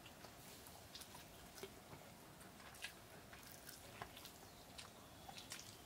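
Near silence: faint room tone with a scattering of soft, irregular clicks.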